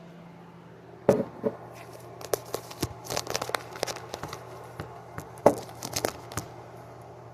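Hands handling and fitting together the plastic parts of a Bissell PowerForce bagless upright vacuum cleaner: an irregular string of clicks, knocks and rattles, loudest about a second in and again about five and a half seconds in. A faint low hum sits underneath.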